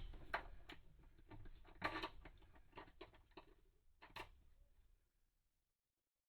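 Scattered light clicks and taps of small toilet hold-down hardware being handled at the floor flange. They thin out and stop about four and a half seconds in, and dead silence follows.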